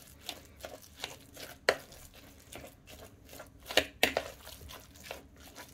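A metal fork mashing and mixing raw pork mince in a bowl: irregular clicks and scrapes of the fork against the bowl, the sharpest about two seconds in and again near four seconds in.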